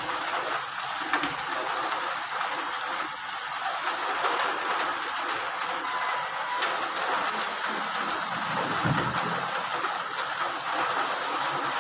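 Steady rain falling on a wet paved road and dirt roadside, an even hiss that holds at one level throughout.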